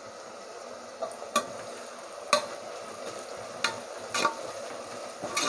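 Onions frying in oil in an aluminium pressure cooker, sizzling steadily as they are stirred with a perforated steel ladle. The ladle clinks against the pot a few times.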